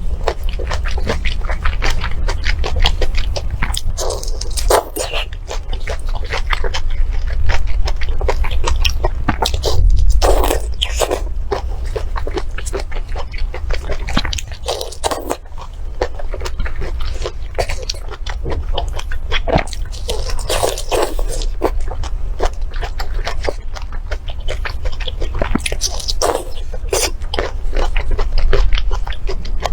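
Close-miked eating sounds: chewing and biting with many small crunches and wet clicks, going on without a break.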